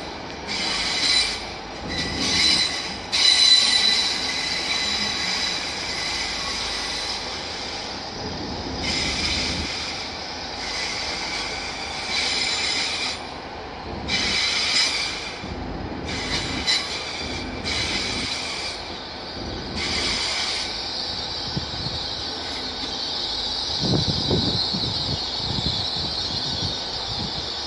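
GWR Intercity Express Train (IEP) running slowly along the platform, its wheels squealing against the rails in short spells that come and go, giving way to a steadier rumble and hiss near the end.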